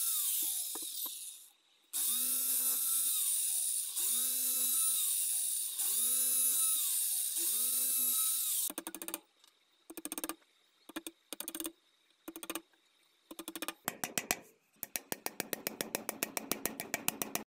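Bosch cordless drill boring into a round wooden board. About five runs of a second or two each, the motor whining up to speed and winding down as the trigger is released, then a string of short trigger blips. Near the end comes a fast, even run of clicks.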